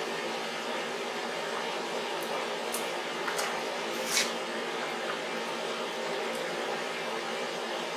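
Several small sharp metallic clicks from piston rings and ring-installation pliers being worked onto a Cummins diesel piston, the loudest about four seconds in, over a steady background hum.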